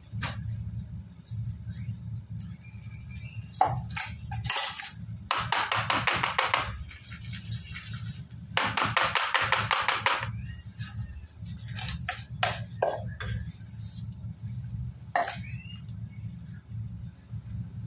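A metal spoon scraping and clinking against a plastic mould as wet slate pencil paste is spread in it. Twice, about five and nine seconds in, the mould is shaken and tapped quickly against the tiled floor to settle the paste, giving a rapid rattling tap that lasts over a second each time.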